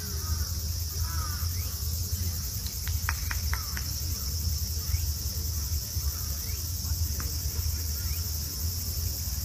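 Steady, high-pitched insect chorus, with scattered short chirps and a low, steady rumble underneath; a quick run of sharp chirps comes about three seconds in.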